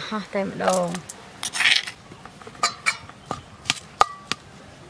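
Metal spoon stirring chili sauce in a stainless steel bowl: a short scrape, then a run of sharp clinks against the bowl, one about four seconds in ringing briefly. A voice is heard in the first second.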